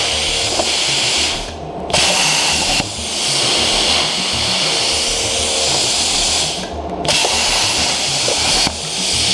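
CNC plasma cutter's 45-amp arc hissing steadily as it cuts 18-gauge steel. The arc cuts out about a second and a half in and again around seven seconds, restarting abruptly each time as the torch moves to a new cut, and drops again near the end.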